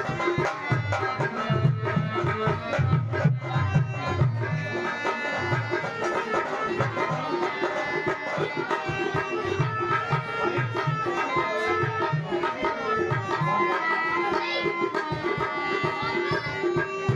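Music with percussion: a repeated low drum beat under sustained pitched instrument tones.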